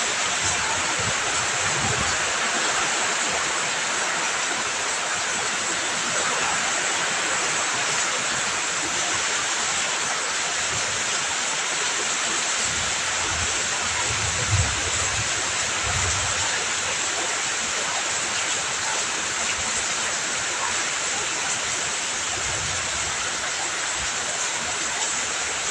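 Heavy rain pouring steadily, a dense even hiss, with a few low rumbles swelling briefly, the strongest around the middle.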